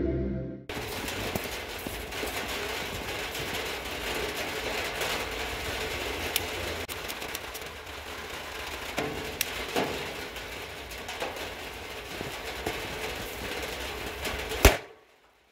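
Outdoor ambience with light rustling and scattered small clicks and knocks, then one sharp bang of a firecracker exploding near the end, after which the sound cuts off.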